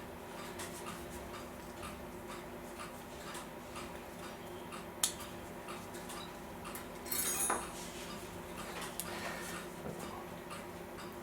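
A clock ticking steadily over a steady hum, with a sharp click about five seconds in and a brief metallic clatter of small clock parts being handled about seven seconds in.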